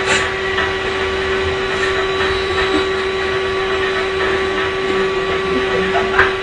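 Cordless vacuum cleaner running steadily: a constant motor whine over a broad rushing hiss, with a brief sharp knock just after the start and another near the end.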